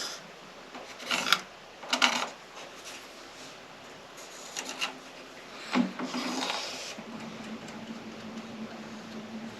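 A few separate scraping strokes of a hand tool on wood, the last one longer, followed by a faint low steady hum from about seven seconds in.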